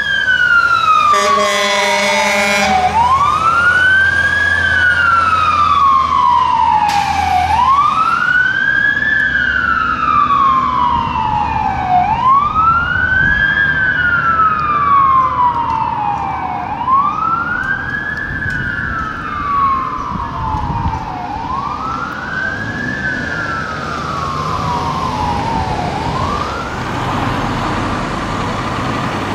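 A fire engine's siren winds up quickly and falls away slowly, over and over, about every four and a half seconds. A blast of the truck's air horn sounds about a second in, with the truck's engine rumbling underneath.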